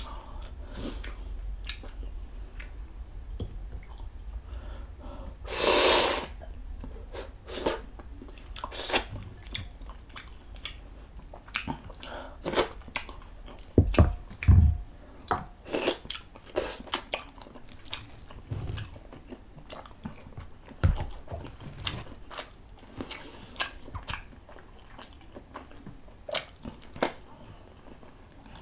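A person chewing and biting beef bulalo meat and bone marrow close to the microphone: irregular wet clicks and smacks of mouth and teeth, with one longer, louder noisy sound about six seconds in.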